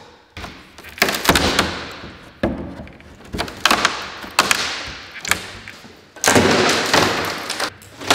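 A plywood shipping crate being pried apart with a crowbar: a series of sharp knocks and thuds as panels and nails give way, then a longer rough noise of wood about six seconds in.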